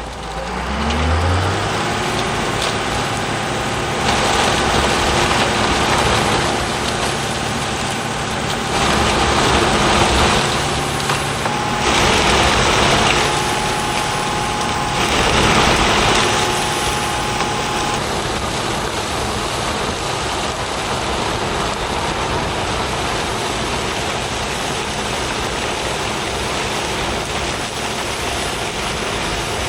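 Vehicle engine speeding up, its pitch rising over the first couple of seconds, then steady driving noise of engine and road rumble, with several louder rushing stretches in the middle.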